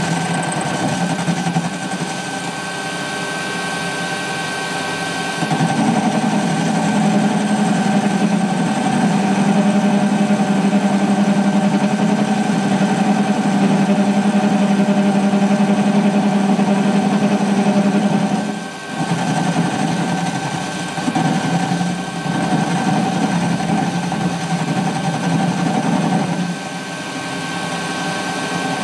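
Warco mini lathe running with a steady motor hum and whine while the tool is fed slowly across the end of the spinning bar, taking a light 0.1 mm facing cut. The sound grows louder about five seconds in, drops briefly about two-thirds of the way through, then wavers and eases near the end.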